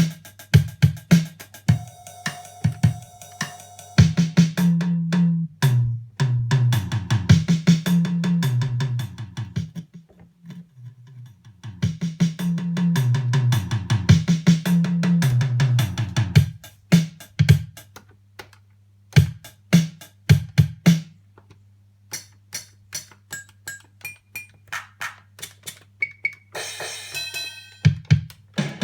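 Electronic drum-machine beat of kick, snare and cymbal hits over a bass line that steps between notes. It stops and starts, leaving stretches of sparse clicks and a few short high beeps.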